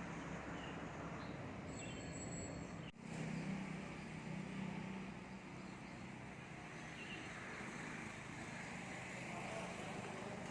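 Steady outdoor street ambience: a low vehicle hum over an even background noise, with a few faint, high chirps. The hum grows a little after a brief break about three seconds in.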